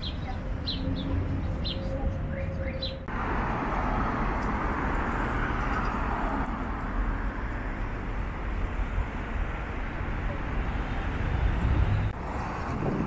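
Small birds chirping for about three seconds over a low rumble, then a sudden change to the steady rushing noise of a moving vehicle, which runs on until another abrupt change near the end.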